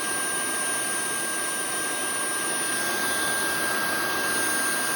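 MOOSOO high-speed hair dryer with a 100,000 rpm motor running steadily: a rush of blown air with a steady high-pitched motor whine.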